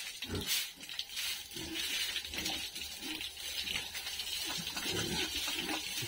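Water spraying steadily from a hose onto the wet concrete floor of a pig pen, with a pig grunting a few times.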